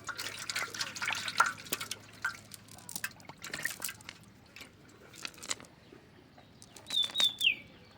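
Water splashing and dripping in many small irregular splashes. Near the end comes a short, high chirp that falls in pitch.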